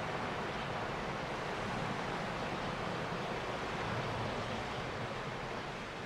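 Steady wash of sea surf, an even rushing noise with no distinct breaks, easing off slightly near the end.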